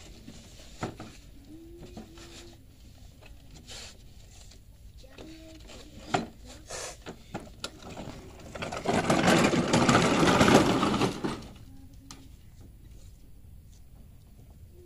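A loud burst of machine-like rattling, about three seconds long, a little past halfway through. Otherwise only faint clicks and short faint tones.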